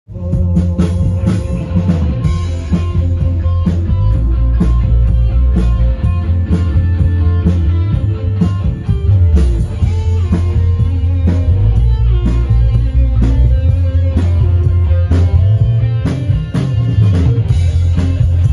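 Rock band playing live at a sound check, raw and unmixed: drum kit with steady beats, electric guitar and heavy bass, loud throughout and starting abruptly at the very beginning.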